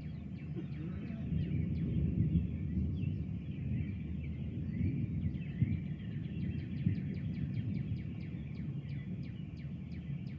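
Distant thunder rumbling low, swelling over the first few seconds and slowly dying away. Birds chirp over it throughout, with a quick run of high chirps near the end.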